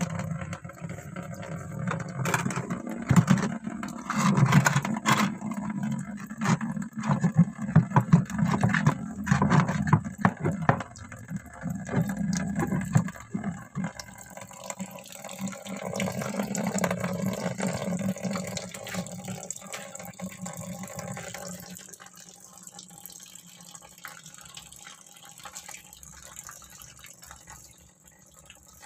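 Tap water pouring into a plastic bucket while stones are set and rubbed in the water, with frequent knocks and splashes through the first half. The flow then runs on more steadily and grows quieter near the end.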